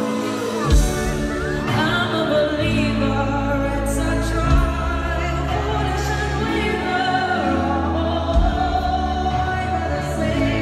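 Live concert music: a singer over sustained low chords, with a heavy hit about every four seconds.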